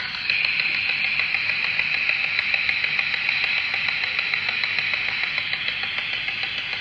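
P-SB7 spirit box sweeping rapidly through radio frequencies: a steady hiss of static chopped into quick fragments as it jumps from station to station.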